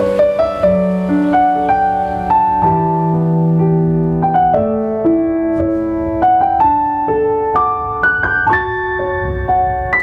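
Background piano music: a melody of held notes stepping up and down over chords.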